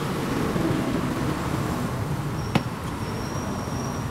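Steady street traffic noise, with one sharp click about two and a half seconds in and a thin high tone in the last second.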